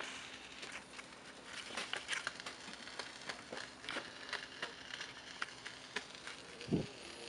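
Turntable stylus tracking a dirty, scratched Victor 78 rpm shellac record: surface noise of hiss with scattered crackles and pops, and a low thump near the end.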